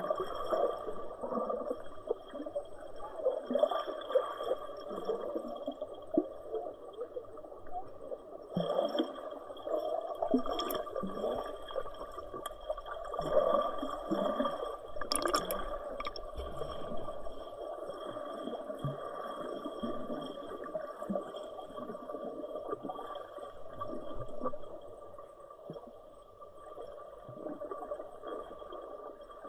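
Water gurgling and churning steadily, with irregular splashy surges.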